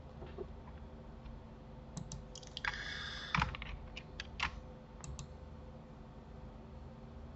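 Computer keyboard keystrokes and mouse clicks: a scattering of sharp clicks, with a short rattling burst about three seconds in, over a faint steady hum.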